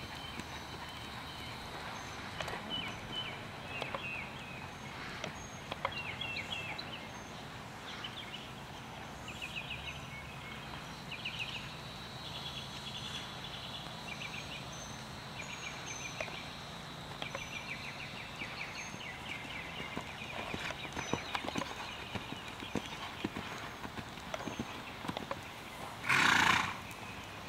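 Red roan horse's hooves beating on sand arena footing as it trots and canters under a rider, with birds chirping. Near the end, one loud horse whinny about half a second long.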